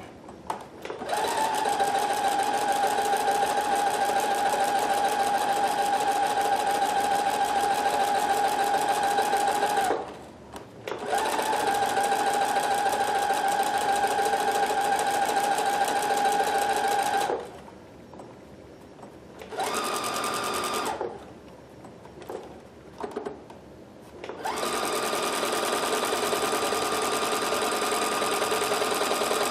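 Husqvarna Viking Platinum Plus sewing machine running at a steady speed in long runs, stitching back and forth over a tear to mend it. It stops briefly about ten seconds in, then stops again for several seconds past the middle, with one short run in that gap. The motor note is higher in the later runs.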